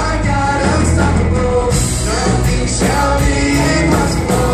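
Live worship band playing an upbeat rock-style song: several singers over a drum kit and guitars, with a regular drum beat.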